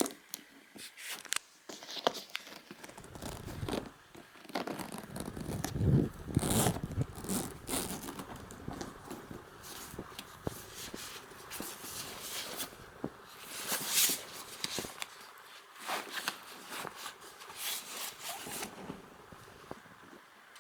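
Handling noises from unboxing a leather briefcase: irregular rustling, scraping and small clicks, with louder bumps about six seconds in and again near fourteen seconds.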